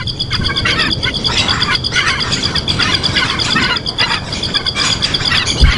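Small birds chirping in short repeated bursts over a steady, fast-pulsing high trill, with a low thump near the end.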